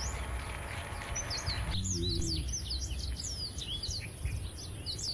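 Small birds chirping over and over, many quick high chirps that sweep downward, over a steady low outdoor rumble, with a brief low call about two seconds in.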